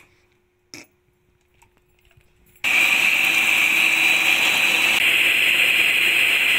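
Geepas electric mixer switched on about two and a half seconds in, after a couple of short clicks, then running with a loud, steady whine as its beaters whip eggs and sugar.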